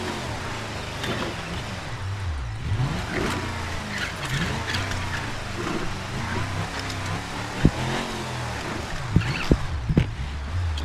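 Added truck-engine sound effect revving up and down in steps under an RC scale crawler, with a few sharp knocks in the second half.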